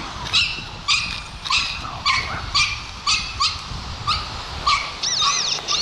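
Small dog yapping over and over, about two sharp barks a second, screaming away.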